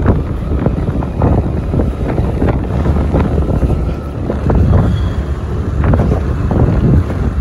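Wind buffeting the phone microphone on a moving motorbike, in irregular gusts, with the engine running low underneath.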